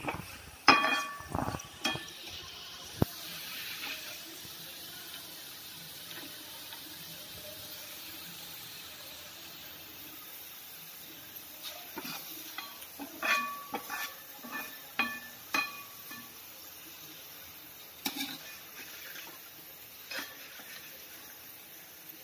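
Grated taro (arbi) deep-frying in hot oil in a kadhai with a steady sizzle. A metal slotted spoon stirs and scrapes it, clinking against the pan with a brief ring, in bursts about a second in, again around the middle, and twice near the end.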